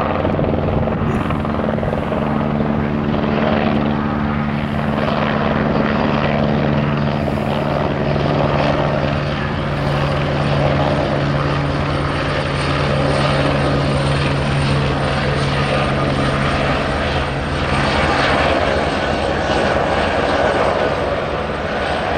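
Eurocopter Écureuil-type light helicopter hovering low, turbine and rotors running steadily at a constant pitch. A low steady hum in its sound fades away about two-thirds of the way through.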